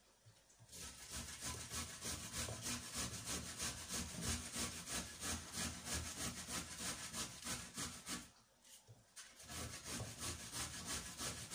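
Hand food preparation at a kitchen counter: quick, rhythmic rasping strokes that start under a second in and pause for about a second near the end before going on.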